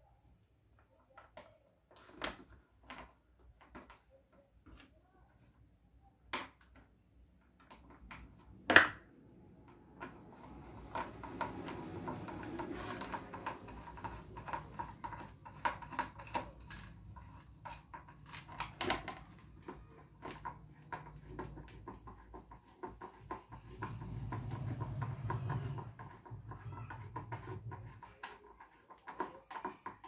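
Clicks and knocks of a plastic kitchen-scale casing and a screwdriver being handled on a wooden workbench as the back cover is screwed shut, with one louder knock. A steady hum joins about a third of the way in and swells near the end.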